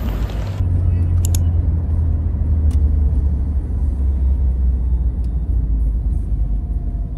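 Steady low rumble of road and engine noise inside a moving taxi's cabin, with a few faint clicks. It begins about half a second in, after a moment of street noise.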